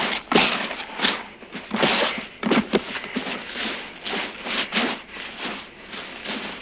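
Sandy dirt being scraped and shoveled by hand and with a wooden board, in a quick, irregular series of scrapes.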